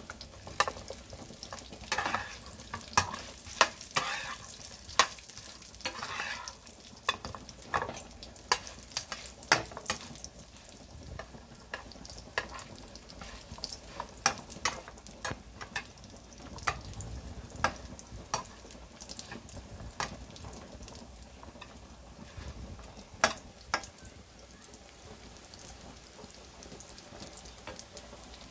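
Breaded mini pork cutlets sizzling in hot oil in a nonstick frying pan, with sharp clicks and scrapes of a metal spatula turning them. The clicks come often in the first half and more sparsely later.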